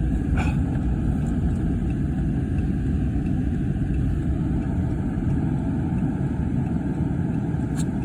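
Car's engine and tyres running steadily, heard from inside the cabin while driving on snowy streets, with a short tick near the start and another near the end.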